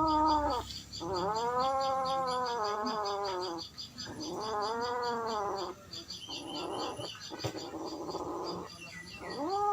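Domestic cats caterwauling: long, drawn-out yowls that rise and then fall in pitch, each lasting a second or two, with a rougher, noisier stretch in between and another yowl starting near the end.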